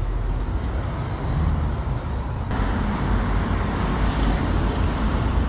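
Steady road traffic noise with a heavy low rumble; the hiss grows brighter about two and a half seconds in.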